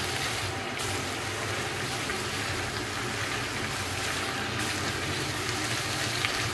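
Chopped vegetables, ground meat and kidney beans sautéing in a frying pan, a steady sizzle as they are stirred with a wooden spoon.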